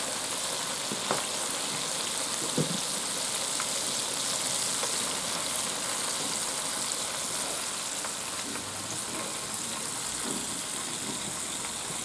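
Floured pieces of daggertooth pike conger (hamo) deep-frying in a pot of hot oil: a steady high sizzle with a few small crackles.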